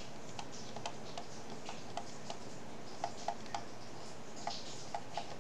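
Stylus tapping and clicking on a pen tablet during handwriting: light, irregularly spaced clicks, a few per second, over a faint steady hiss.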